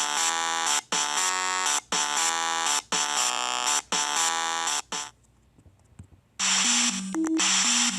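Steam train whistle sounding in about five blasts, roughly one a second, stopping about five seconds in. Near the end a loud hiss with a few low notes under it begins.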